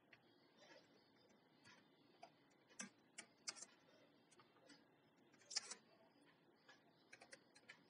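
Near silence broken by sparse, faint computer keyboard keystrokes as text is typed, a few single clicks with the loudest about two-thirds through and a quick run of clicks near the end.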